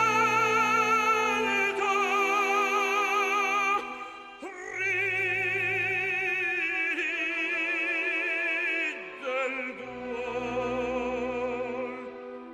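Operatic singing: long held notes with strong vibrato over accompaniment, broken by short pauses about four and nine seconds in.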